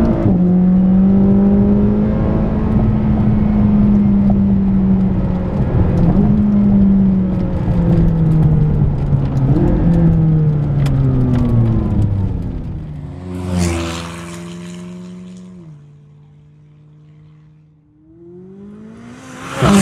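McLaren 570S twin-turbo V8 with AWE performance catalysts and exhaust, heard from inside the cabin: the engine note falls steadily as the car slows, jumping up at about six and about nine and a half seconds on downshifts, then settles low and quieter. Near the end, heard from the roadside, the car comes up and passes loudly, its pitch dropping as it goes by.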